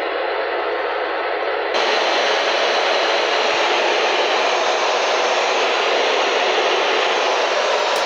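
Weather radio receiver hissing with steady static instead of the alert audio. The hiss gets louder and brighter about two seconds in.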